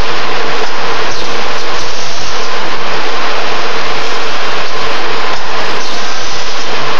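Automatic steel-wire ring forming and welding machine running: a loud, steady mechanical noise with no clear rhythm.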